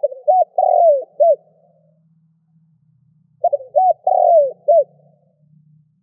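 Spotted dove cooing: two multi-note coo phrases, the second about three and a half seconds after the first, over a faint low hum.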